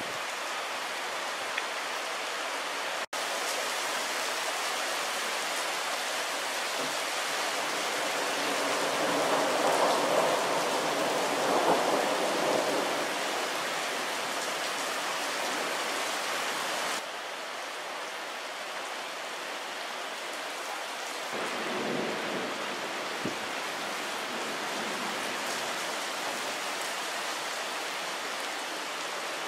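Steady rain of a thunderstorm, with a long rolling rumble of thunder swelling up about a third of the way in and a fainter rumble later on.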